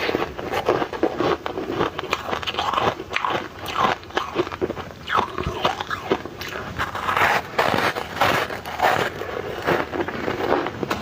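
A person biting and chewing ice close up: a dense, irregular run of sharp crunches and cracks.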